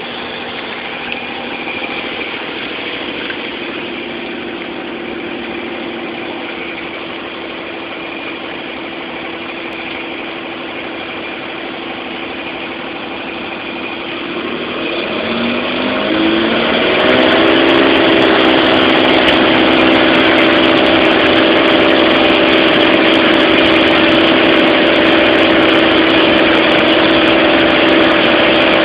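Small propeller plane's engine heard from inside the cabin, running steadily at low power, then throttled up about halfway through: the pitch rises and it settles into a louder, steady full-power drone, as for the takeoff run.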